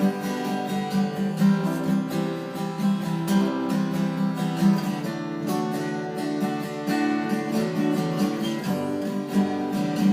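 Acoustic guitar strummed in a steady rhythm, chords ringing, with no voice.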